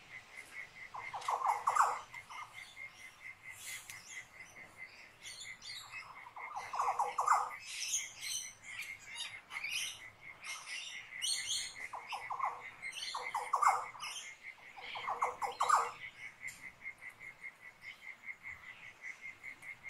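Forest birds and a cricket: a cricket chirps steadily in a fast, even pulse, small birds chirp high and quick, and a lower rattling call comes in short bursts about five times.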